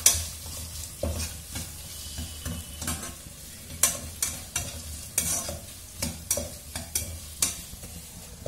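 Perforated metal spatula scraping and clacking against the sides of a metal pot, stirring diced capsicum and carrot frying in oil, with a sizzle underneath. The clacks come irregularly, about one or two a second, the loudest right at the start.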